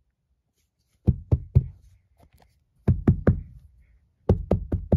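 Knocking in quick groups: three knocks, then three more, then four, each group under a second long.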